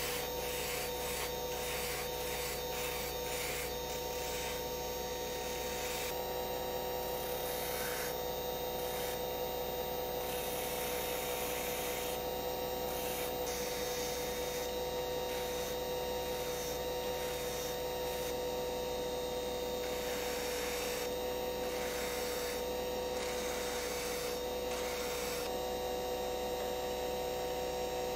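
Flexible-shaft rotary tool running with a steady whine while its small sanding drum grinds padauk wood, the rasping coming and going in repeated passes, quick and short at first and longer later.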